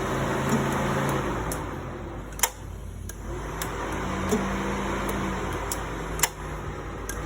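2003 Subaru Forester XS engine turning over with a steady mechanical hum. It breaks off with a sharp click about two and a half seconds in, comes back about a second later slightly rising in pitch, and a second sharp click comes near the end.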